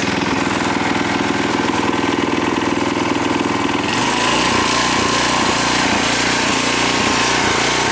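Tecumseh 6 hp OHV single-cylinder engine on a Craftsman tiller running steadily just after starting on one pull, freshly rebuilt with a new camshaft and flywheel key. Its note changes about halfway through.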